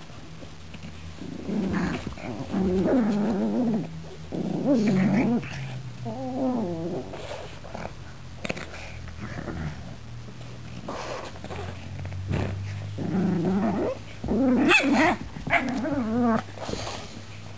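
Pugs growling in play over a plush toy, in several rumbling bouts of a second or two each, with short pauses between.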